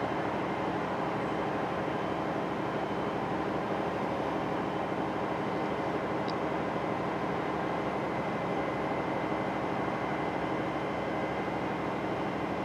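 Steady distant rumble with a faint, steady high whine running through it, with no rise or fall; no train passes close by.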